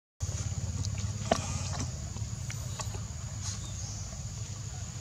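Outdoor background sound: a steady low rumble and a steady thin high-pitched hiss, with scattered faint clicks and one sharper click about a second in.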